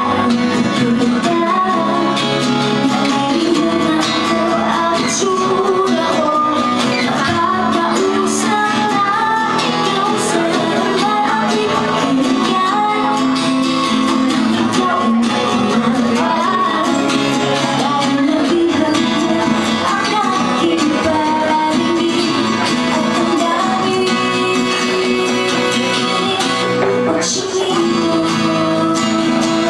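A woman singing a pop song live, accompanied by two acoustic guitars.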